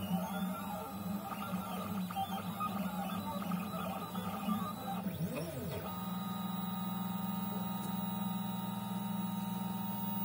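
MPCNC pen plotter's stepper motors whining as the pen head moves, the pitches rising and falling in arcs as it traces curves. About six seconds in it settles into several steady tones as the head travels across the sheet.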